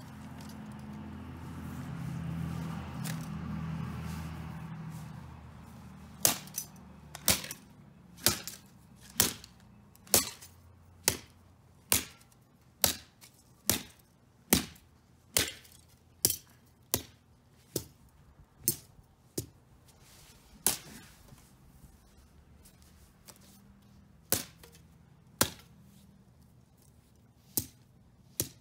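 A golf club striking the smashed parts of an Acer CD drive: about twenty sharp cracks, roughly one a second from about six seconds in, then fewer and further apart near the end. A low rumble swells and fades in the first few seconds.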